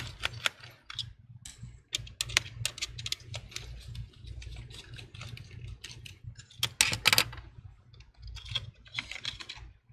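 Quick light clicks and taps of a small screwdriver working the three screws that hold down a laptop's CPU fan, mixed with handling of the fan and heatsink. A louder burst of clicking comes about seven seconds in.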